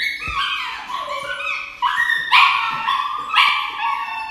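A dog yelping and whining in a continuous string of high-pitched distressed cries while held still for an injection; the cries are loudest about halfway through.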